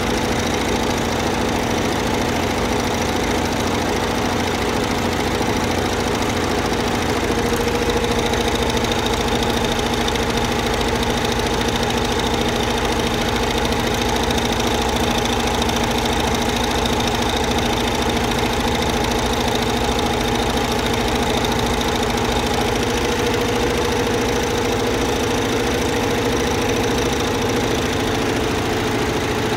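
AJITCL high-speed loop (towel) embroidery machine running at full speed, its needle heads stitching with a steady, fast, even mechanical beat over a constant hum.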